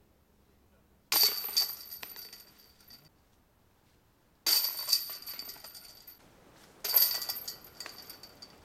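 Discs striking a disc golf basket's hanging steel chains three times, each a sudden metallic jangle that rings and fades over a second or two as the disc drops into the basket.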